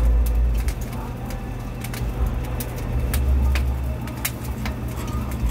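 Electric rotisserie grill turning its wire baskets of pork belly: a steady low motor hum, with surges of low rumble and scattered sharp clicks.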